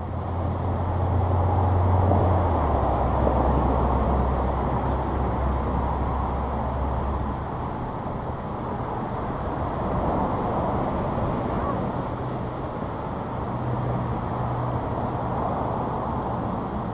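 Steady road traffic noise, with the low drone of a passing vehicle's engine in the first several seconds. The drone drops in pitch about two and a half seconds in and fades out by about seven seconds.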